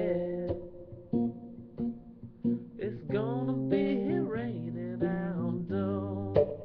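Acoustic blues guitar playing an instrumental passage of plucked notes, with several notes sliding up and down in pitch about halfway through.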